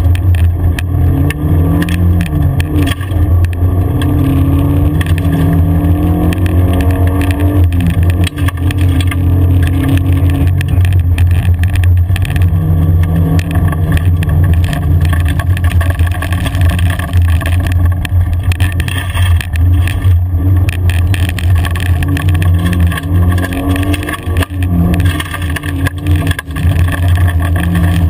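Car engine heard from inside the cabin while driving on a gravel track: a steady low drone, with the revs climbing and dropping back several times through gear changes. Gravel crunches and rattles under the tyres and bodywork throughout.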